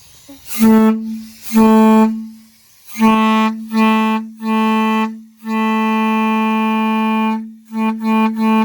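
A HornBlasters train-horn trumpet blown on one steady note in a series of blasts: several short blasts, a long one of about two seconds midway, then quick toots near the end. It is as loud as the horn gets.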